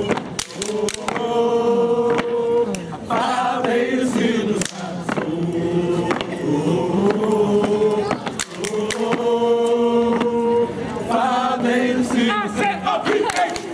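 Voices singing a chant-like melody in unison with long held notes, the phrase repeating twice. Sharp stomps and claps of a step team in boots on concrete run through it.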